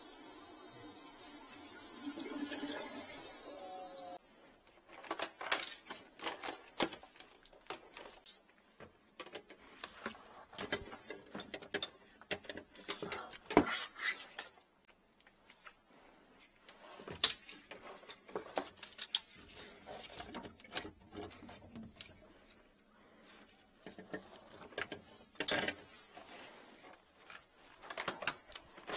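A steady hiss for about four seconds that cuts off abruptly, followed by irregular clicks, rattles and knocks of drain-cleaning cables and tools being handled.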